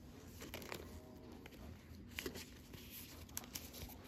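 Faint handling noise of trading cards held in a plastic-gloved hand: light rustling with a few small sharp clicks scattered through.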